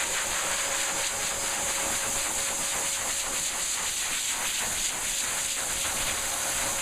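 Dog blow dryer running steadily: a loud hiss of blown air with a steady motor whine underneath.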